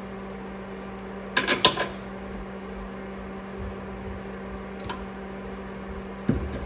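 Metal parts clinking against each other as a bolt is worked into a rear traction arm's mounting holes: a quick cluster of clinks about a second and a half in, a light click near five seconds and a dull knock near the end. A steady low hum runs underneath.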